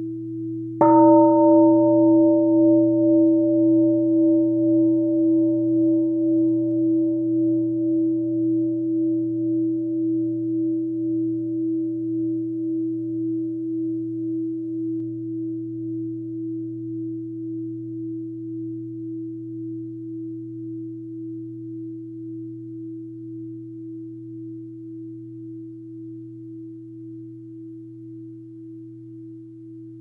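Large Buddhist bowl bell struck once with a wooden striker about a second in, over the fading ring of the previous strike. Its deep hum wavers in a slow pulse and dies away slowly, the higher overtones fading first; one of three soundings of the bell.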